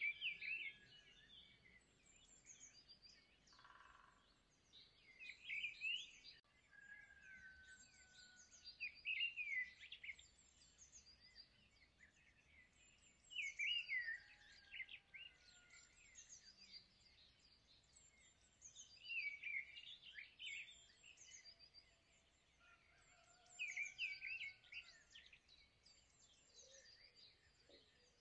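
Faint birdsong: short phrases of quick high chirps and whistles, repeating every four to five seconds.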